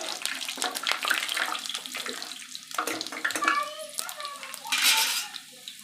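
Garlic frying in hot oil with bay leaves and cumin, a steady crackling sizzle with many small pops, swelling to a louder hiss about five seconds in.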